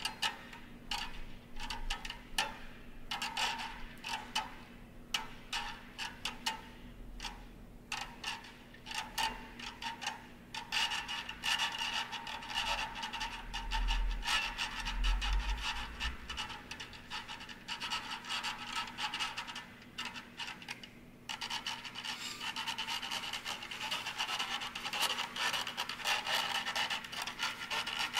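Electroacoustic texture of clicks and rubbing, scraping sounds. Sparse clicks at first thicken about ten seconds in into a dense crackling rasp, with a low rumble under it around fourteen seconds in. The rasp breaks off for a moment about twenty seconds in, then returns.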